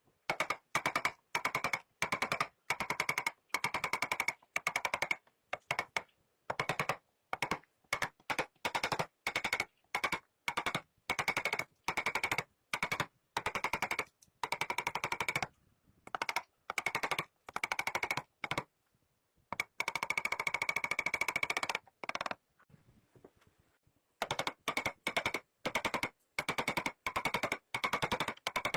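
A small power carving tool chattering in short bursts against wood: rapid trains of clicks with a steady whine, stopping and starting about once a second, with one longer run about two-thirds of the way through.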